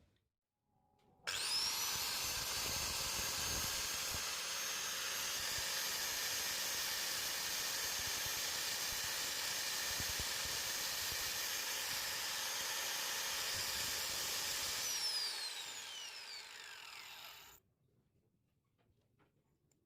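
A small electric power tool switches on about a second in. Its whine climbs quickly to a steady high pitch and runs for about fourteen seconds over a rough hiss. It then winds down in a falling whine as the motor coasts to a stop.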